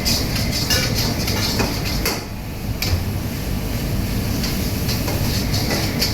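Metal ladle scraping and knocking against a wok over a steady roaring burner, irregular clatter during a high-flame stir-fry.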